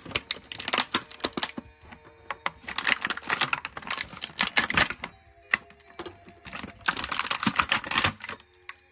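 Clear plastic packaging bag crinkling as it is handled, in three spells of crackling separated by short pauses, the last stopping about eight seconds in.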